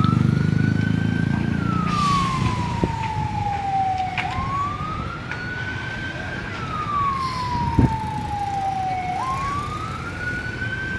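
An emergency vehicle's siren wailing slowly: each cycle jumps up in pitch, climbs a little, then glides down over about three seconds, repeating about every five seconds. A steady low rumble runs underneath, with one sharp knock about eight seconds in.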